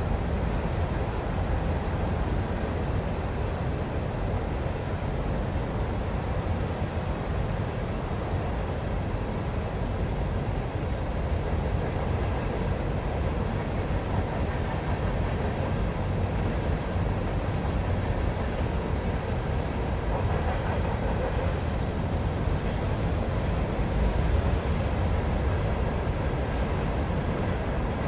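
Empty CSX coal train rolling past with a steady rumble of steel wheels on the rails.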